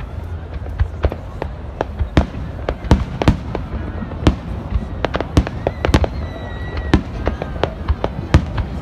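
Aerial fireworks shells bursting in a rapid, irregular series of sharp bangs, several a second, over a steady low rumble.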